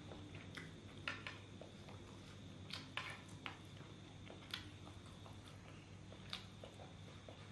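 Quiet eating: chewing, with scattered soft clicks of a metal spoon scooping fried rice from a frying pan, over a low steady hum.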